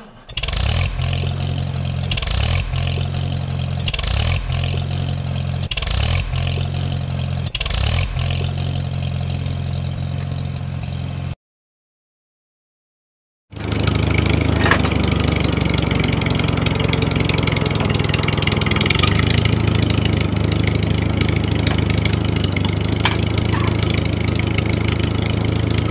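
Tractor engine sound running steadily, with a short burst of revving about every two seconds for the first several seconds. It cuts off abruptly for about two seconds, then resumes at a steady run.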